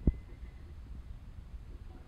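A single dull, low thump just after the start, then only faint low room noise.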